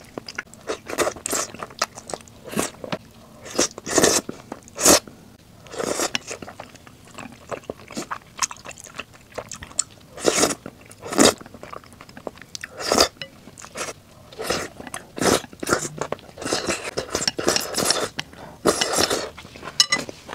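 Close-miked eating sounds: chewing and slurping spicy noodles and cheese-topped rice cakes, in a quick irregular run of short smacks and slurps.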